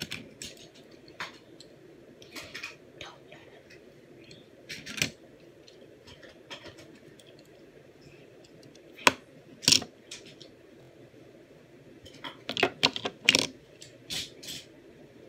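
Scattered clicks and small knocks of handling close to the microphone: a die-cast toy car being turned over in the hand, coming in clusters about nine seconds in and again near the end.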